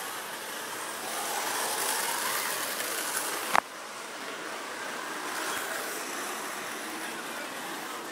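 Street traffic noise with a vehicle passing, swelling for about two seconds, then a single sharp click a little over three and a half seconds in.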